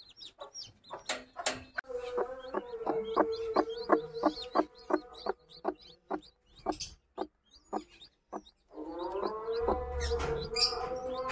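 Chickens clucking in a quick repeated run, about three calls a second, with newly hatched chicks peeping high over it.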